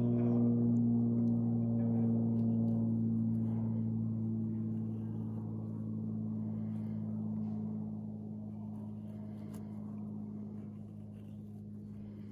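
A steady low humming drone of several held tones that slowly fades, its higher notes dying away first. Over it come faint, short scrapes of a knife shaving curls from a wooden stick for a feather stick.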